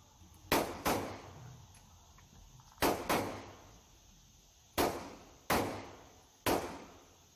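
Gunshots from other shooters in an indoor range: seven sharp reports at irregular intervals, two of them in quick pairs, each with a short echoing tail from the range.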